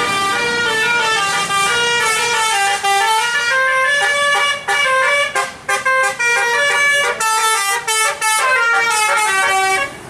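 Tour bus's Basuri telolet horn, a set of tuned air horns, playing a fast melody of stepping notes. The notes run on smoothly at first, break into short, quick staccato notes in the middle, then run on again.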